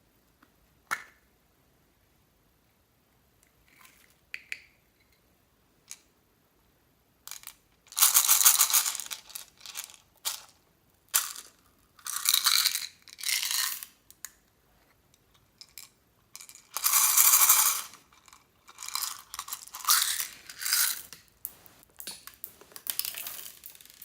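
Slime being squeezed and mixed by hand. A few faint clicks at first, then from about a third of the way in, repeated loud bursts of noise lasting a second or two each.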